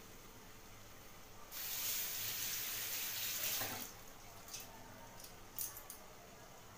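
Water running from a tap for about two seconds, starting about a second and a half in, followed by a few faint clicks.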